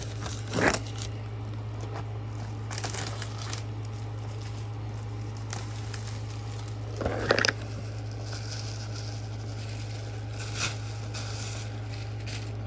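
Plastic packaging wrap being torn and peeled off a cardboard card box: faint rustling, with short louder crinkling rips about a second in, around seven seconds and again near ten and a half seconds.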